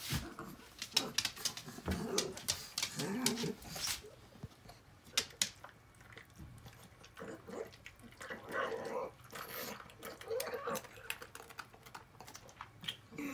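Pug eating canned tuna from a ceramic bowl: quick wet chewing and smacking clicks, with short pitched grunt-like sounds from the dog in between, most around a third of the way in and past the middle.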